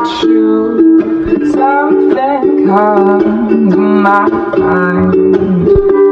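Background music: a song with a singing voice over plucked-string accompaniment.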